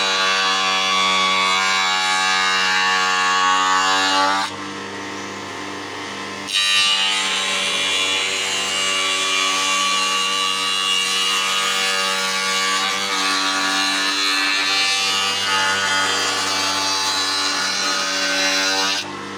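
Spindle moulder (wood shaper) cutting a profile along the edge of a wooden door panel, a loud steady whine while the cutter is in the wood. About four and a half seconds in it drops for two seconds to the quieter hum of the spindle running free, then cuts again, and near the end falls back to running free.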